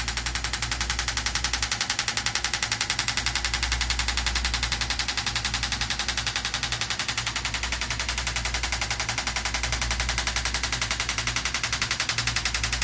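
Shockwave therapy handpiece firing into the shoulder: a rapid, even clicking that keeps a steady rate, the sound of the acoustic pulses being delivered into the tissue.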